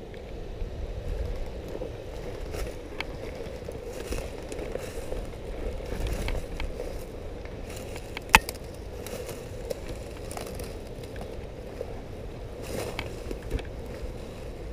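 Irregular crackling and scraping of someone moving through dry leaves and undergrowth, with one sharp, loud crack about eight seconds in.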